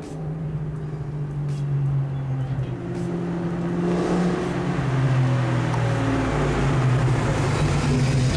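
Supercharged Ford 5.0 V8 Mustang running through Flowmaster Super 44 mufflers, its exhaust note growing louder as the car approaches. The engine pitch drops about halfway through, then holds as it gets louder.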